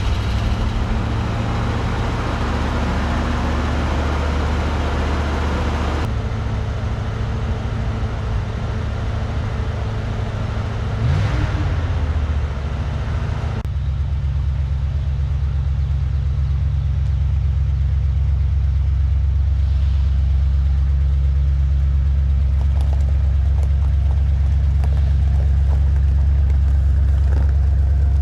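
1978 Ford Mustang II engine idling, with one quick rev about eleven seconds in; after that the idle settles into a deeper, steady run.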